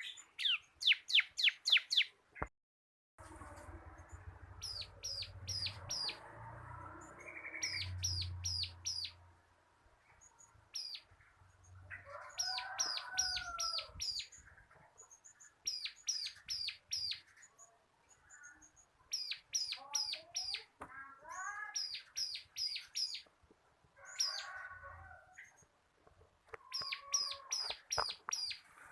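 Bar-winged prinia (ciblek) singing in its rapid drilling style: quick runs of sharp, downward-sweeping notes, repeated in bursts throughout. Lower calls from other birds sound now and then underneath, and the sound drops out briefly near the start.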